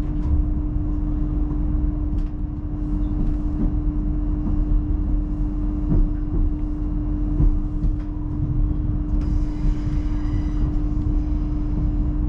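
Hitachi Class 802 bi-mode train pulling away on diesel power, heard from inside the carriage. A steady low rumble with one held hum from the underfloor diesel engines, wheels running on the track with occasional clicks, and a faint hiss joining about nine seconds in.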